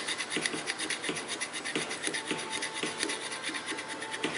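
Wet and dry abrasive paper rubbed back and forth by hand over a metal Hopkinson bar and its soldering pads, a rhythmic scratching of two or three strokes a second, sanding off leftover superglue.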